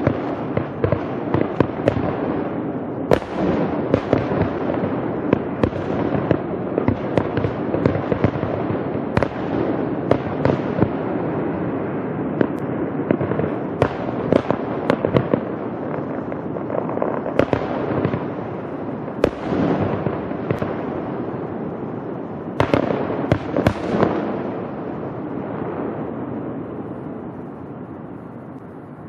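Fireworks grand finale: a dense, continuous rumble of shell bursts with many sharp cracks, dying away over the last few seconds.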